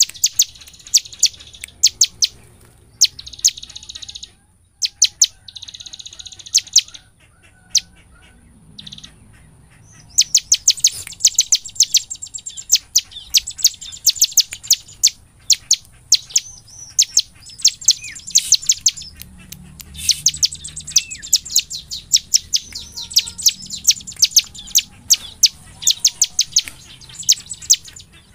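Bar-winged prinia (ciblek) singing its rapid-fire 'nembak' song: fast series of sharp, high chips with short buzzy trills in the first several seconds, then an almost continuous quick run of notes from about ten seconds in.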